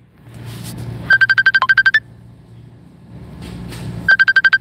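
Electronic phone ringtone: a rapid trill of about ten high beeps lasting about a second, heard about a second in and again near the end, repeating every three seconds over a low steady hum.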